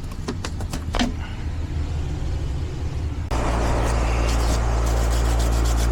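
A few sharp clicks, then about three seconds in a loud, steady mechanical hum starts abruptly: an air-conditioning outdoor condensing unit with its compressor and fan running.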